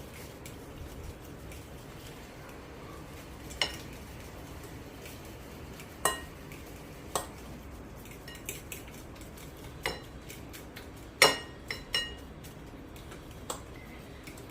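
A metal utensil clinking against a mixing bowl while mashed banana and sugar are beaten together: about eight sharp, irregularly spaced clinks that ring briefly, the loudest about three-quarters of the way through.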